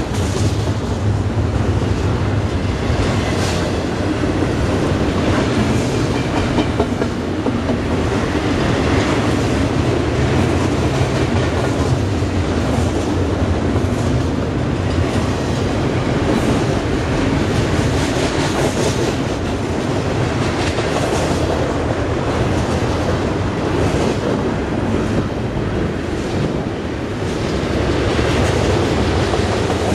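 Double-stack container train's well cars rolling past at speed: a steady, loud rumble of steel wheels on rail, with scattered clicks and clatter from the wheels.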